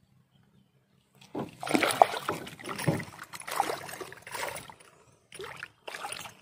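Water splashing and sloshing in a run of irregular bursts for about four seconds, then two short splashes near the end: a hooked giant snakehead (toman) thrashing at the surface beside the boat.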